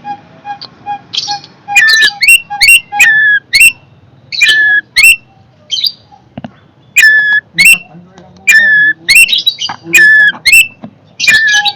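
Long-tailed shrike (cendet) calling fiercely in quick runs of loud, harsh, sweeping notes, with a short lull about six seconds in. A faint, evenly pulsing tone repeats underneath.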